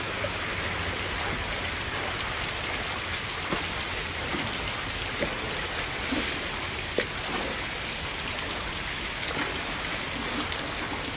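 Steady wash of water noise from a flooded street: floodwater running and rain falling, with a few faint sharp ticks scattered through it.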